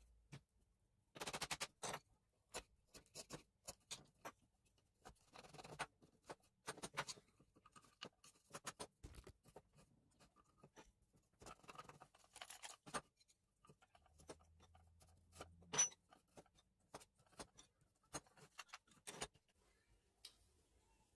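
Faint, scattered clicks, taps and light knocks of small wooden parts and steel chisels being handled and set into a cedar chisel rack on a workbench, with one sharper knock about three-quarters of the way through.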